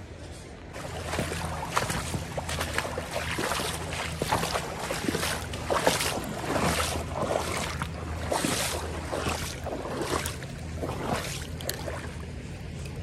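Footsteps wading through a shallow creek: water splashing and swishing around the legs about twice a second, starting about a second in and easing off near the end.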